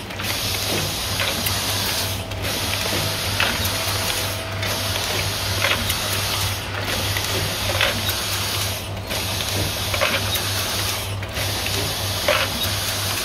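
Automatic cartoning machine on a cosmetics packaging line running: it folds cartons and inserts the folded leaflet and bottle. The noise goes in a regular cycle that repeats about every two seconds, with light clicks over a constant low hum.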